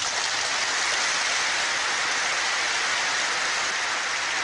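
Large audience applauding steadily, a dense even clapping that holds one level throughout.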